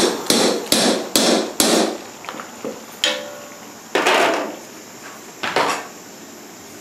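A metal spoon stirring in a large aluminium pot, in rhythmic strokes about two or three a second that stop about two seconds in. Then three separate knocks as a knife chops through green mango on a wooden cutting board.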